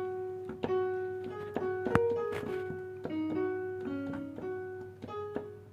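Piano sound from a Nektar Impact LX49 MIDI keyboard being test-played: short notes struck one after another, mostly the same note repeated, with a few neighbouring notes between. The key being tested only sometimes triggers, the sign of a dirty rubber contact pad under it.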